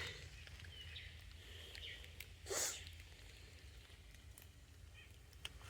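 Quiet outdoor ambience with one short sniff or snort of breath about two and a half seconds in.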